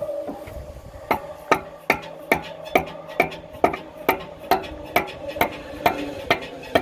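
Steady hammer taps on a steel pickle fork, about two a second with a short metallic ring after each, driving the fork in to wedge the pump off the engine's crankshaft.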